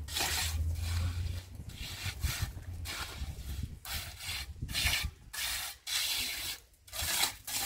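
Rough scraping strokes repeated at an uneven pace, about one and a half to two a second.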